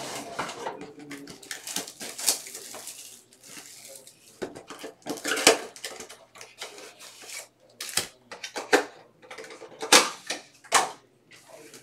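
Foil-wrapped trading-card packs crinkling and being set down in stacks on a table while a cardboard card box is opened and handled. Irregular sharp clacks mix with rustling.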